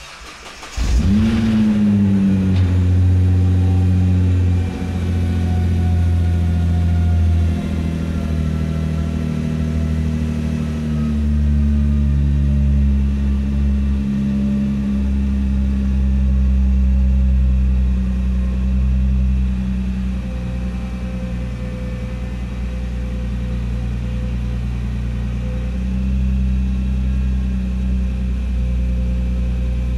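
Nissan GT-R R35's twin-turbo 3.8-litre V6 cold-starting after three months standing: a brief crank, then it catches under a second in with a short flare in revs. It settles into a loud, steady high cold idle whose pitch drifts slowly down as it warms, echoing in a concrete underground garage.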